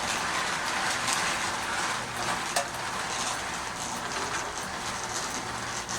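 Toy train running along its track: a steady mechanical whir with a few sharp clicks.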